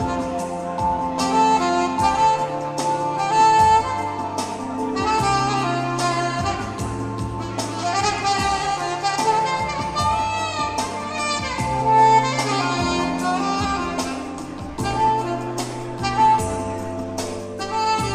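Instrumental music: a saxophone plays a melody over a steady beat and a bass line that changes notes every second or two.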